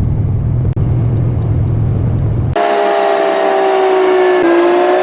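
Vehicle engine and road noise: a steady low rumble that switches abruptly, about two and a half seconds in, to a running engine with a steady drone that slowly sinks in pitch.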